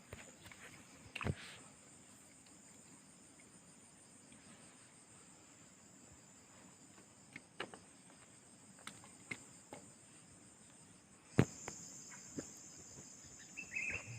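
Insects trilling steadily in a high pitch, with a few sharp knocks scattered through. The loudest knock comes a few seconds before the end, after which the insect sound grows louder.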